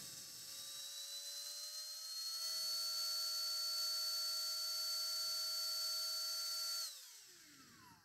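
Cordless handheld vacuum's small DC motor and fan whining as turbo mode is switched on, the pitch rising over the first two to three seconds to a higher steady speed. Near the end it is switched off and spins down with a falling whine.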